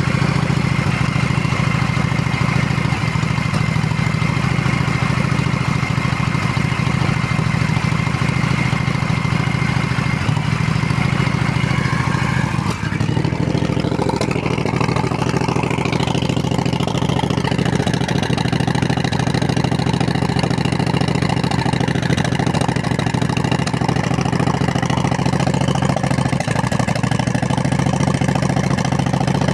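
Motorcycle engine idling at slightly raised revs, with an occasional misfire, a 'sneeze' heard in the engine and the silencer, and a brief stumble about halfway through. The misfire is intermittent, and the owner, who does not know its cause, wonders about the electronic ignition.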